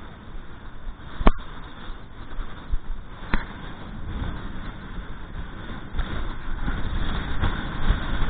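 Strong wind buffeting the microphone in a steady low rumble that grows stronger towards the end, with two sharp knocks, one about a second in and one about three seconds in.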